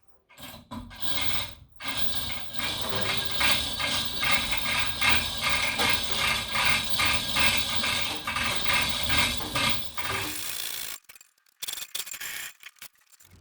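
Ratchet and pawl of a lifting mechanism clicking in a fast, regular run as a heavy machine is lowered under load. It starts about two seconds in and stops abruptly near the end.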